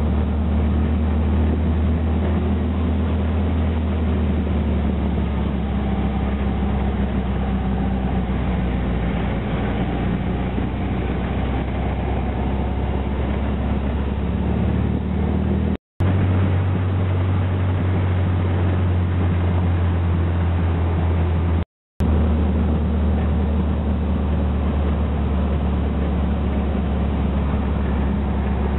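Dune buggy engine running steadily while driving, a low drone mixed with wind and road noise. The sound cuts out completely twice, briefly, in the middle.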